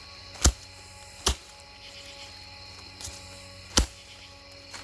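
Collapsible shovel blade chopping into rooty forest ground, three sharp strikes cutting through tree roots.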